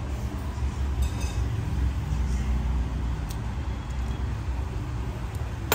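Low, steady background rumble with a few faint clicks as the opened phone's plastic frame and parts are handled, and one sharp click near the end.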